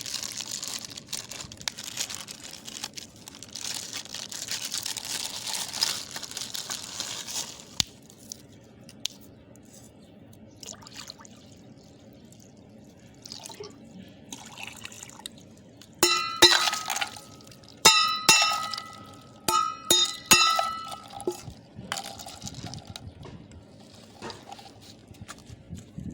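A steady hiss for the first eight seconds, like liquid pouring or frying, then quiet. About two-thirds of the way through comes a quick run of sharp, ringing clinks of hard kitchenware.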